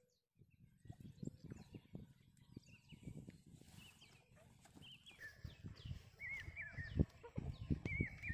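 Outdoor ambience: a small bird chirping repeatedly in short hooked notes, growing louder in the second half, over irregular low thumps and rumbles.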